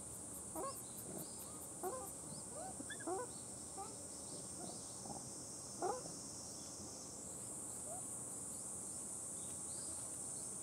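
A run of short rising animal calls, about half a dozen in the first six seconds with the loudest near the end of the run. Under them runs a steady high drone of insects, which grows slightly louder after about seven seconds.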